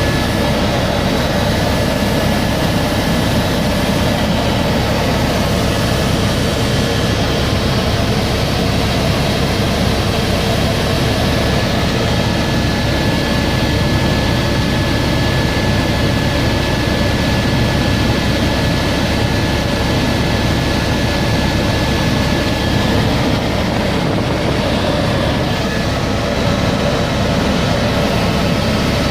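Helicopter in flight, heard from inside the cabin: the steady loud drone of rotor and turbine engine, with a thin steady whine over it.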